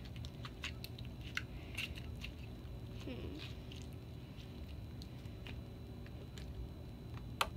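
Borax-activated glue slime being squeezed and stretched by hand: irregular small clicks and squishes, with one sharper pop near the end.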